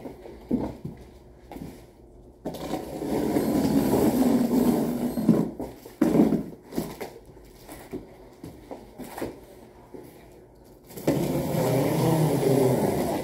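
Long cardboard shipping box being cut and worked open by hand: spells of scraping and tearing of cardboard and plastic wrap, with a few knocks in between.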